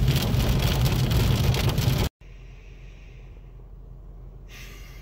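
Car driving on a rain-soaked road, heard from inside: loud, even road and tyre noise with a deep rumble. About two seconds in it cuts off sharply to a much quieter car interior with a low steady hum and faint rain hiss, which grows brighter near the end.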